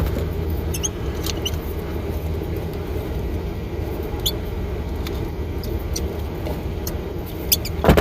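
Steady low hum of background machinery, with faint scattered clicks and scratches of small thermostat parts being handled and pried at, and a sharper click near the end.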